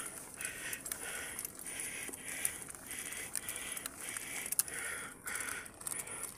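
A cyclist breathing hard in a steady rhythm, about two breaths a second, from the effort of pedalling uphill, with light clicks and rattles from the bicycle.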